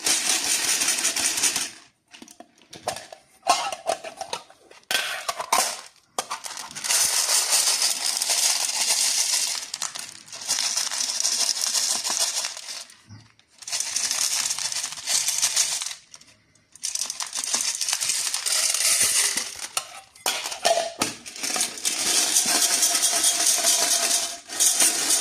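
Plastic candy wrappers and packaging being handled and opened: crisp crinkling and rustling in stretches of a few seconds each, with short pauses and sharp clicks between.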